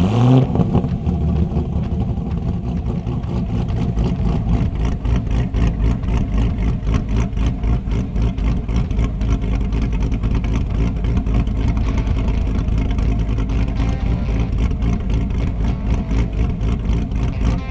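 Lingenfelter-cammed C8 Corvette's 6.2-litre LT2 V8 gives a short rev at the start, then idles with a choppy, lopey pulse from the aggressive aftermarket camshaft.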